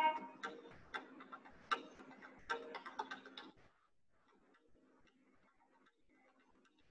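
A held music note dies away at the start, then faint, irregular clicks and ticks over a low hum, stopping after about three and a half seconds into near silence.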